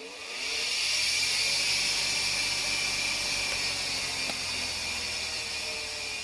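Washing machine motor spinning up over about a second, then running steadily with a loud, even whir.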